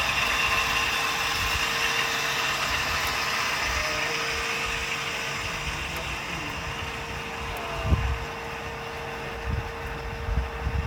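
MiG-17F's VK-1F turbojet running with a steady whine over a broad hiss, slowly growing quieter. A few low thumps come near the end.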